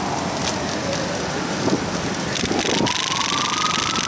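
Emergency vehicle siren wailing, its pitch sliding down and then slowly rising again from about halfway in, over steady street noise.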